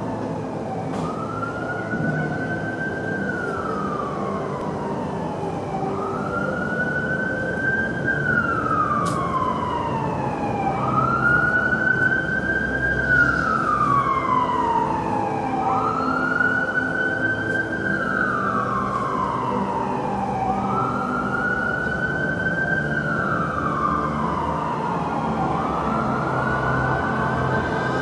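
A siren wail that rises slowly, then slides down, repeating about every four seconds over a low steady hum.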